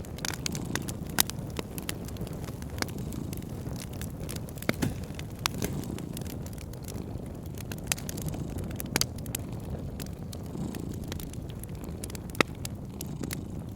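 Wood fire crackling, with irregular sharp pops over a steady low rumble; two louder pops stand out, about a second in and near the end.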